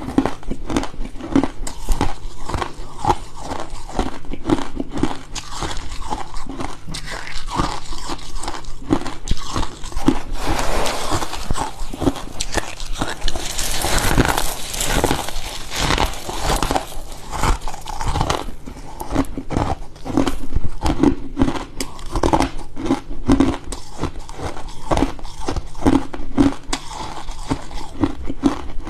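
Freezer frost being bitten and chewed close up: a rapid, continuous run of crisp crunches and crackles, thickening into a denser crumbling noise around the middle.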